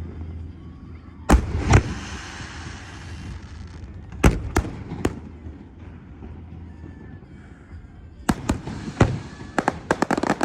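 Aerial fireworks bursting: two bangs about a second and a half in, followed by a crackling hiss, then single bangs around four and five seconds and near eight. It ends in a rapid string of bangs.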